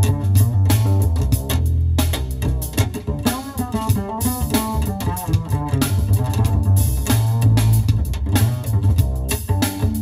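Instrumental jazz track led by bass guitar with a drum kit, played back on a custom car audio system with 8-inch midbass woofers, heard inside the car cabin. The bass is heavy and steady under busy melodic lines and regular drum hits.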